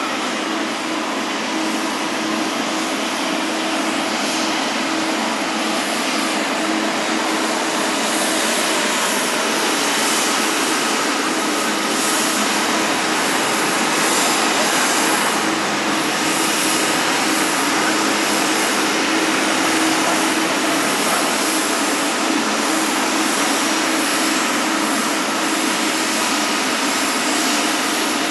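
Jet airliner engines running, a steady rushing noise with a faint whine in it, growing a little louder about ten seconds in.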